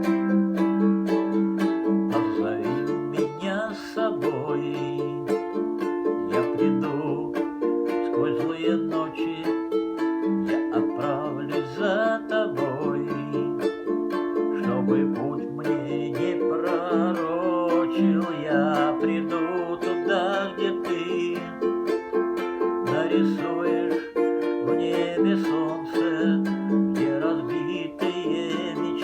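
Ukulele strummed in a steady rhythm through an instrumental passage of the song, with sustained lower notes and a wavering melody line above.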